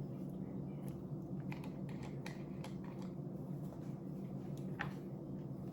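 Scattered small clicks and taps from handling the plastic tube and applicator bottle of a hair dye kit while the colour cream goes into the developer, over a steady low hum.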